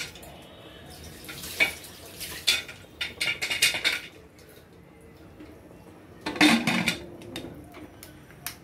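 Aluminium pressure cooker lid clanking and scraping against the pot as it is fitted and locked on, with scattered metal clinks; the loudest clatter comes a little past two-thirds of the way through.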